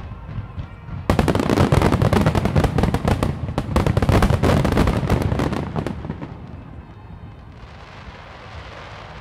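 Fireworks finale: a rapid-fire barrage of aerial shells bursting. After a second of low rumbling thuds, a dense run of overlapping bangs starts suddenly and goes on for about five seconds. It then dies away into a soft hiss.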